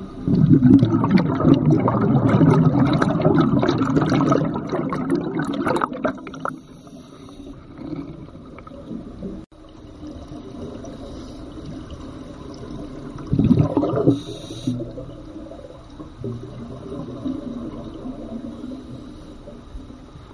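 Scuba regulator exhaust bubbles heard underwater through the camera: a long loud bubbling rush for about the first six seconds, then quieter water noise with a second short burst of bubbling a little past halfway.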